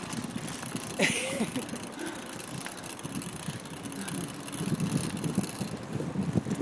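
Bicycle ride on a paved path: an irregular low rumble of wind on the phone microphone mixed with tyre and frame noise, with one brief louder, sharper sound about a second in.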